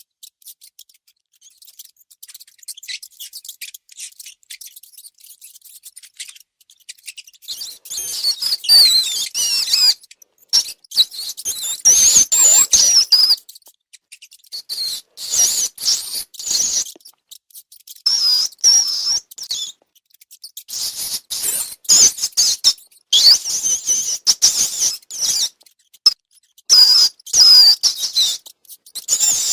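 Rats squeaking and chirping in high-pitched, gliding bursts with short gaps between them. Faint scattered squeaks and clicks at first, growing loud about a quarter of the way in.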